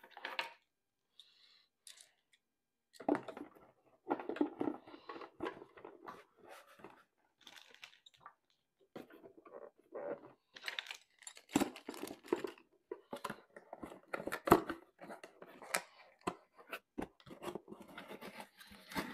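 Packing a cardboard box: irregular rustling and scraping of rubber hose, cables and cardboard as they are pushed in by hand, with scattered sharp knocks, then the box's flaps being folded shut.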